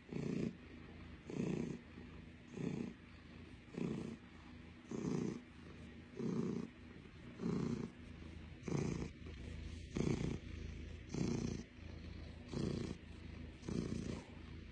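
Russian blue cat purring close up, the purr swelling louder with each breath about once a second.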